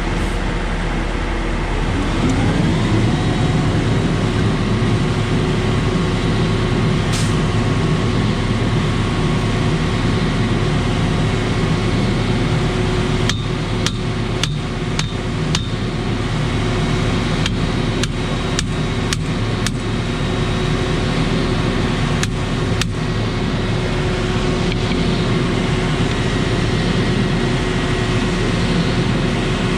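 Concrete pump truck's diesel engine running steadily under load, revving up about two seconds in. Through the middle come several irregular clusters of sharp metallic clacks.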